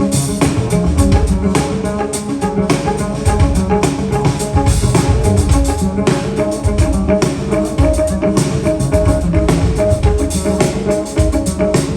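Jazz trio playing, with piano, double bass and drum kit.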